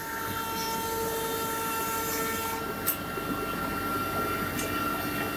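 CNC nesting router on a furniture-panel line running: a steady machine hum with a high spindle whine made of several held tones, one of which drops out about halfway through, and a short sharp click about three seconds in.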